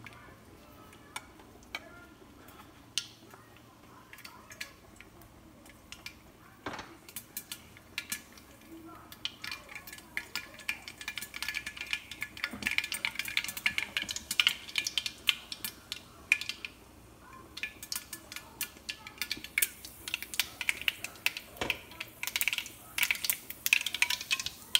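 Mustard seeds popping in hot coconut oil in a wok covered with a glass lid, ticking against the lid. A few scattered pops at first, then from about ten seconds in a rapid crackle over the sizzle of the oil: the seeds spluttering, the tempering stage of the curry.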